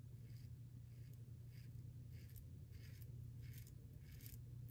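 Bevel double-edge safety razor scraping through stubble on a lathered neck in short, faint downward strokes, about two a second, over a low steady hum.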